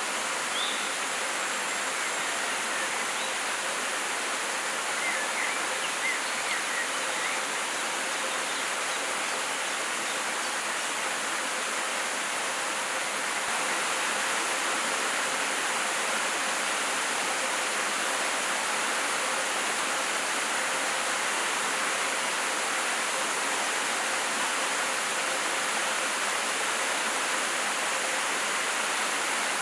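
Steady rush of a forest stream or river flowing over rocks, growing a little louder about halfway through, with a few faint high chirps in the first seconds.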